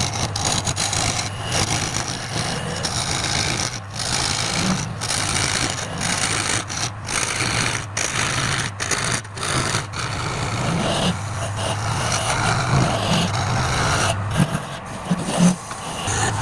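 Woodturning lathe running with a steady motor hum while a turning tool scrapes and cuts the spinning workpiece, the cutting noise breaking off in many short gaps as the tool is lifted and pressed back on.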